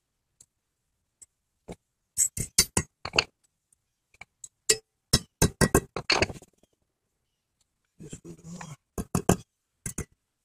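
Brass hammer tapping new steel brake-pad shims onto a front brake caliper bracket to seat them: runs of sharp metallic taps, several in quick succession each time.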